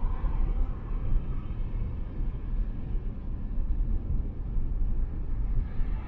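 Steady low rumble of a car cruising at highway speed on an expressway: tyre and road noise with no distinct events.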